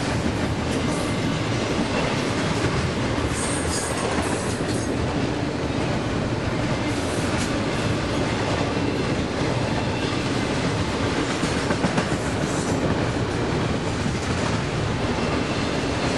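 BNSF double-stack container freight train rolling past at speed: steady noise of the cars' wheels running on the rails. There are brief high wheel squeals about four seconds in, and again a couple of times later.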